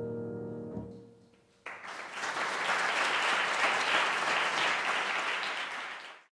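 The last chord of a grand piano ringing and then damped about a second in; after a brief hush the audience applauds, and the applause fades out near the end.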